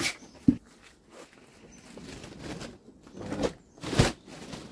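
Two sharp knocks, one about half a second in and one near the end, with faint scratching and a short rustle between.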